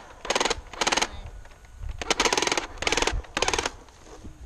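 Motorized Nerf Mega Mastodon blaster running in about five short, rapid rattling full-auto bursts. The owner says it is stuck and clogged somewhere, so the bursts are the blaster cycling while jammed.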